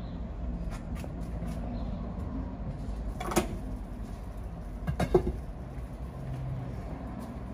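Steady low rumble with a few light clicks and two louder knocks: one about three seconds in and a short cluster of knocks about five seconds in, as of objects being handled or set down.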